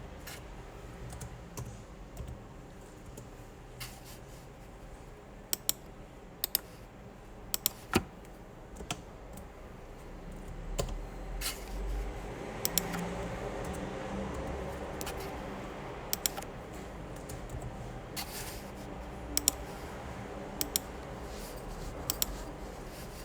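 Scattered sharp clicks and taps of small hand tools working on a phone's parts, single or in quick pairs, a second or more apart, over a low background noise.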